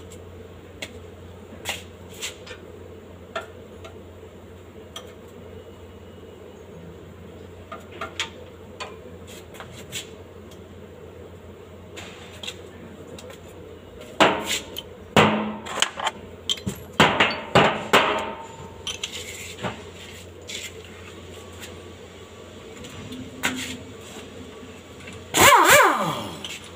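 Metal tools and parts clinking and knocking under a car, with a run of loud sharp knocks about halfway through. Near the end a handheld power tool runs briefly, its pitch falling steeply as it winds down.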